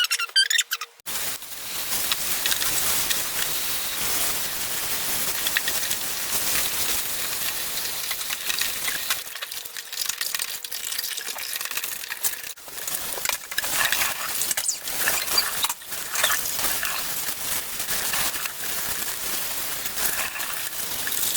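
Close, continuous scratchy rubbing, with short irregular strokes, like hand scrubbing or polishing right next to the microphone.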